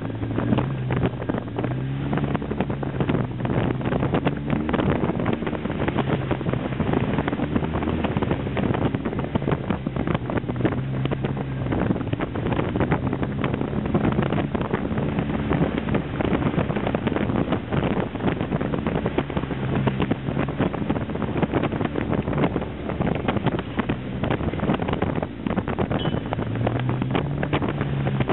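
Polaris RZR 800 side-by-side's twin-cylinder four-stroke engine running under way, its pitch rising and falling repeatedly with the throttle, with wind buffeting the microphone and frequent knocks and rattles from the bumpy dirt track.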